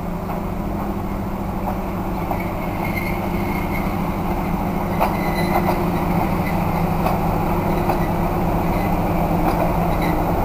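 SP42 diesel-electric shunting locomotive's engine running steadily as it rolls slowly by hauling a single coach, the drone growing gradually louder as it comes closer. A few light clicks and brief high squeals from wheels or brakes are heard over it.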